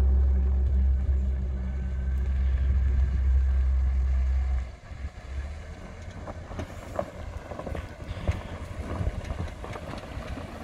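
Chevrolet Celta hatchback driving slowly down a rutted dirt track. A loud, steady low rumble cuts off suddenly about four and a half seconds in, and then comes a quieter stretch of irregular crunches and knocks as the tyres roll over loose clods of earth.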